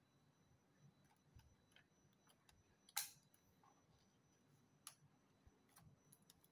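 A few light clicks and taps from hands handling the parts of an opened laptop, the sharpest about three seconds in. Otherwise near silence.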